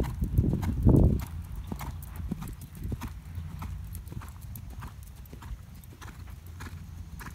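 Ridden horse's hoofbeats on sand footing, in a steady rhythm. They are heavy and close for the first second or so, then lighter and fainter as the horse moves off across the arena.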